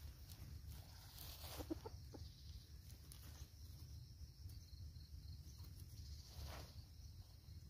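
Faint clucks from a red junglefowl: a few short calls about a second and a half in, with a brief rustle later on.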